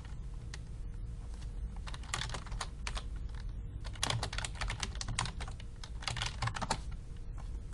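Typing on a computer keyboard: quick keystrokes in a few short bursts.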